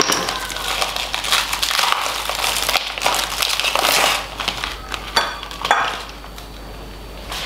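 Plastic wrapper crinkling and tearing as a sausage is unwrapped by hand. Irregular crackling for about four seconds, then a few light clicks.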